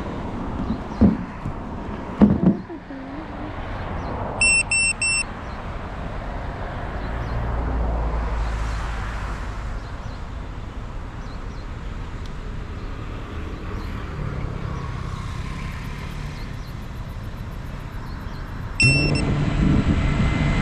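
Road traffic: cars passing by in swells, with a couple of thumps early and three short high electronic beeps about four and a half seconds in. Near the end a beep sounds and a steady pitched motor hum starts up, typical of an FPV quadcopter arming and spinning up its motors.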